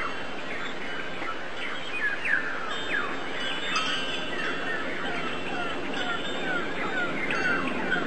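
A chorus of many small birds chirping: short, quick falling chirps overlapping throughout, over a steady background hiss.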